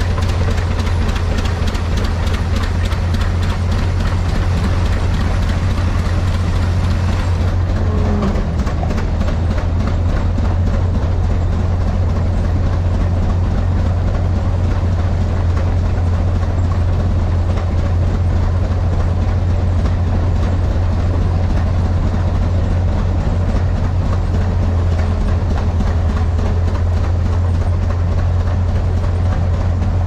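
Belt-driven threshing machine running at speed while bundles of oats are fed into it: a steady low drone with a fast, even mechanical clatter.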